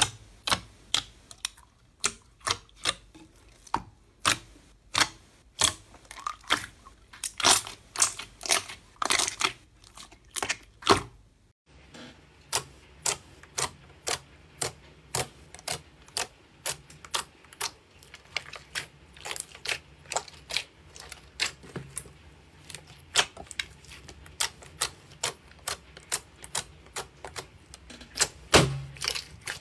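Fingers poking and pressing into thick glossy slime, each press giving a sharp wet click or pop as trapped air bursts, about two a second. The clicks stop briefly about twelve seconds in, then go on as fingertips press a second, darker slime.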